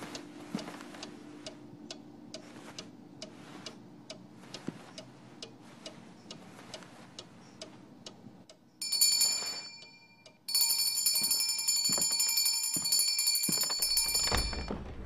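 A clock ticking steadily, a few ticks a second. About nine seconds in a short high ring sounds, and from about ten and a half seconds a loud continuous high bell rings, like an alarm clock, for about four seconds before stopping.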